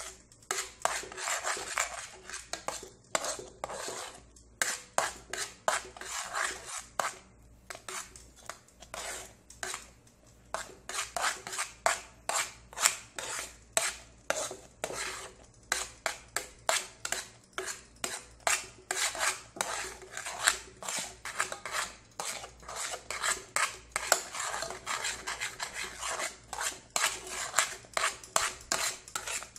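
A spoon scraping and clinking against the sides and bottom of an aluminium pot while stirring oatmeal, in quick repeated strokes, a few a second, with a quieter stretch about a third of the way through.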